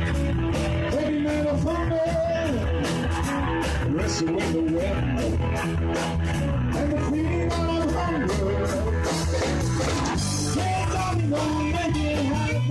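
A live rock band playing amplified electric guitars, bass and a drum kit with a steady beat, with a lead melody line sliding over the top.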